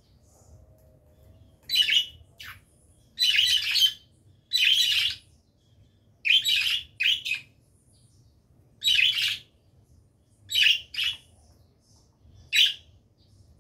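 Small pet parrot calling: a series of about ten short, scratchy chirps, each well under a second, spaced irregularly about a second apart.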